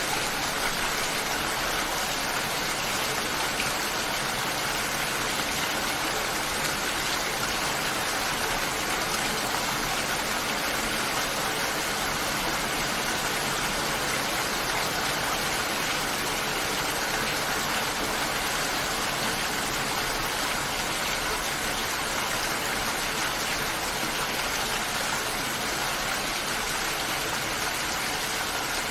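Rain falling steadily in an even hiss.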